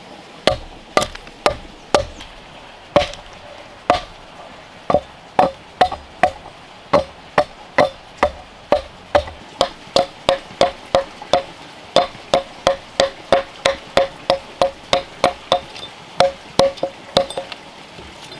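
Axe chopping into a wooden log, hewing it flat: a steady run of sharp wooden knocks, each with a short ring. The blows come about two a second, quicken to about three a second from about halfway, and stop about a second before the end.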